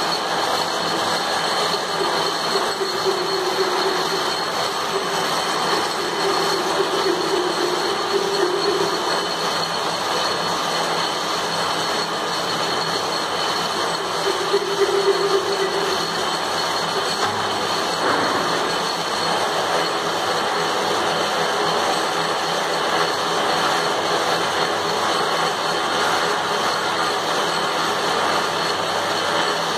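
Metal lathe running steadily, a constant machine noise with a high whine, and a lower tone that swells and fades three times.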